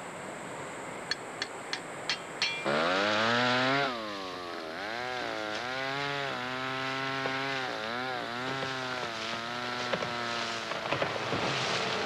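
About five quick hammer taps as a label is nailed to a tree trunk, then a chainsaw starts up loud about two and a half seconds in. Its engine pitch rises and falls again and again as it cuts into timber.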